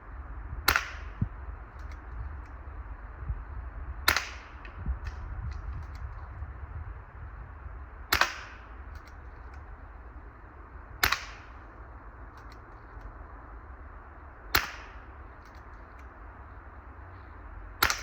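A .25 calibre air rifle being fired six times at a steady pace, one sharp crack every three to four seconds.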